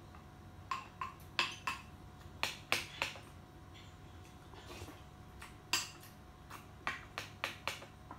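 Eating sounds: a ceramic soup spoon clicking against a glass rice bowl and the lips smacking while chewing. There are about a dozen sharp clicks in three clusters, with a pause in the middle.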